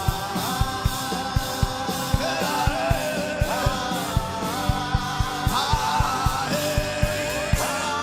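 Worship music: a singing voice gliding between notes over a steady, fast drum beat.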